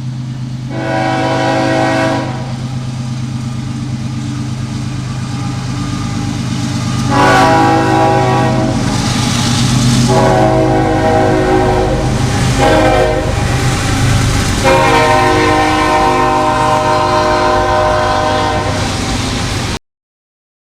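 Freight-train diesel locomotive horn sounding over the steady rumble of the locomotive: one short blast about a second in, then four blasts in close succession, the last the longest. The sound cuts off suddenly near the end.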